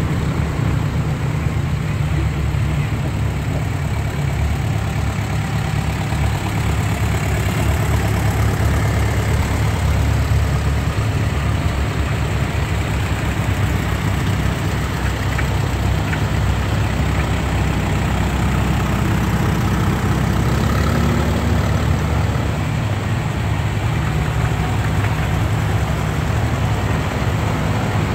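Antique farm tractor engines running at low speed as the tractors drive past one after another, a steady low engine note.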